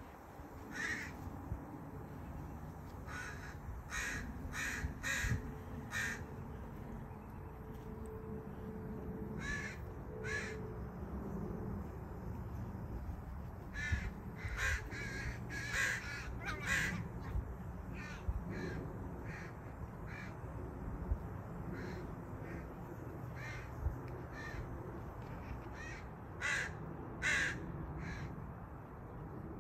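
Crow cawing: short calls in scattered runs, two loud caws near the end.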